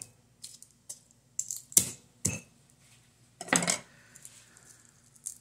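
Garlic bulb being broken apart into cloves on a wooden cutting board: a few sharp clicks and knocks as cloves hit the board, then a longer, louder scratchy sound about three and a half seconds in.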